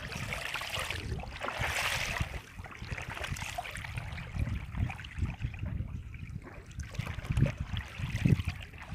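Water splashing and sloshing, with a brief rush of splashing about two seconds in and heavier low thuds near the end.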